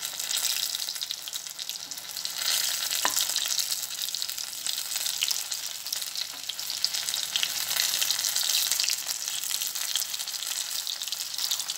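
Batter-coated boiled potatoes shallow-frying in hot oil: a steady sizzle with fine crackling, and a single light click about three seconds in.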